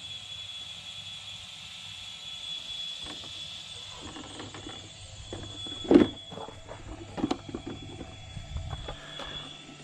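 Knocks and clatter from handling an RC car on a plastic folding table, starting about four seconds in, with a sharp thump about six seconds in and another about a second later, over a steady high-pitched whine.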